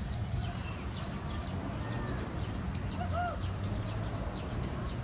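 Outdoor ambience: a steady low wind rumble on the microphone, with small birds chirping in the background and one short rise-and-fall call about three seconds in.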